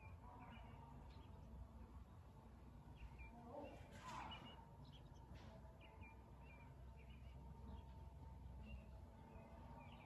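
Near silence with faint, scattered bird chirps over a low steady hum, and one brief louder sound about four seconds in.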